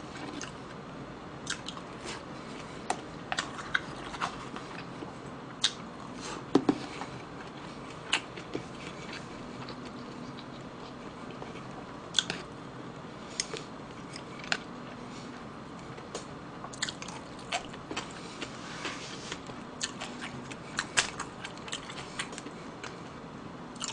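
Close-miked chewing of mouthfuls of stir-fried pork (duruchigi), with irregular short wet clicks and smacks spread through.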